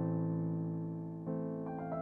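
Background piano music: slow, sustained chords, with a new chord struck about a second in and a few higher notes near the end.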